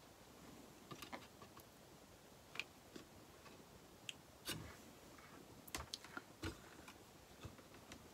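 Near silence broken by a few faint, scattered clicks and taps: small items such as a hot glue gun and wooden spoons being handled on a wooden work table.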